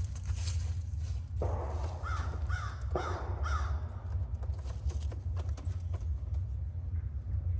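A bird giving about four short calls in quick succession, about two seconds in, over a steady low rumble.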